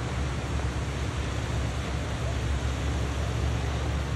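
Shoreline ambience: small waves breaking on the beach under a steady low rumble of wind buffeting the microphone.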